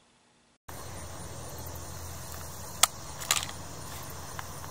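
After a brief silence, a steady outdoor background, then two sharp clicks about half a second apart near the middle: a pistol being unsnapped and drawn from a Crye Precision Gun Clip holster.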